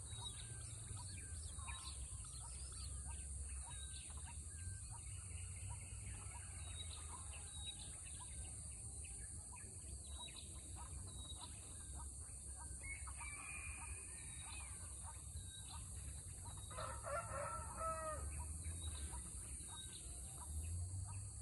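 Outdoor bird calls: many short chirps scattered throughout, and a rooster crowing about three-quarters of the way through, under a steady high hiss.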